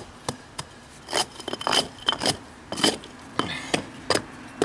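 Flat metal blade scraping and tapping as loose blacktop is packed into the joint at the base of a concrete-block wall: a dozen or so quick, irregular strokes with a light metallic ring.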